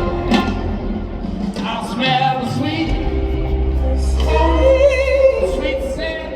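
Live rock band in concert, heard from the audience: a singer holds long notes with vibrato over bass and keyboards, and the bass drops out for about a second midway before coming back in.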